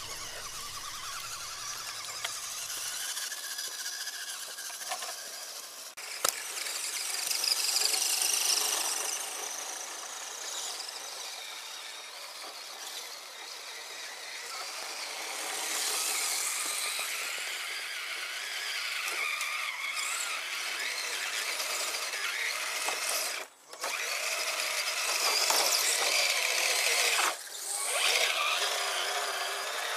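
Axial SCX10 radio-controlled crawler's electric motor and geartrain whining as it crawls over rough ground, rising and falling. It cuts out briefly twice near the end.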